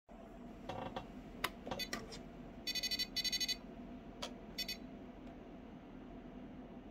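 Radio-control electronics beeping as they are switched on: a short beep, a few clicks, two longer pulsing electronic beeps about three seconds in, then a click and one more short beep, over a faint steady hum.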